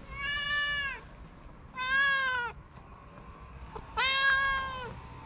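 Tuxedo cat meowing three times, each meow just under a second long and dropping in pitch as it ends.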